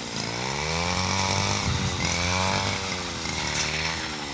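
Petrol brush cutter running while cutting tall grass, its engine pitch dipping and climbing back again every second or so as the blade takes the load of the stalks.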